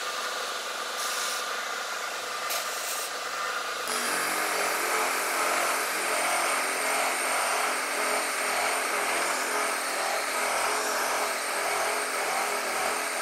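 Corded reciprocating saw with a Silky pruning blade running and cutting through a green tree branch held in a vise. The sound changes and grows louder about four seconds in.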